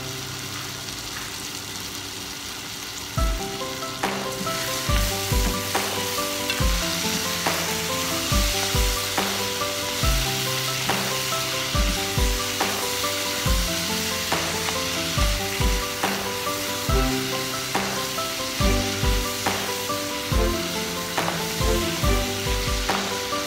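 Peas, carrots and tomatoes sizzling in a pot as they are stirred with a spatula, under background music with a steady beat.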